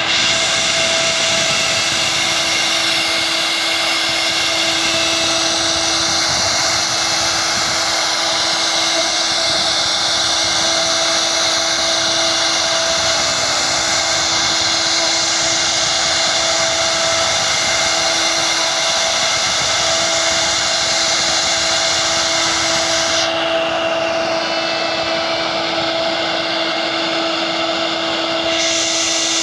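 Electric power tool motor running steadily at high speed, a constant whine over a broad hiss. The highest hiss drops away for about five seconds near the end, then returns.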